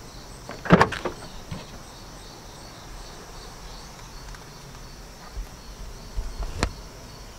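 Insects chirping steadily in the background, an evenly repeating high pulse. A sharp click a little under a second in comes as the car's trunk latch releases, and a second short knock follows near the end.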